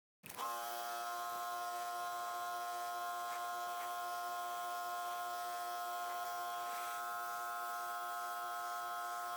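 RYOBI electric pressure washer running steadily: a constant motor whine with a hiss above it. It cuts in suddenly just after the start.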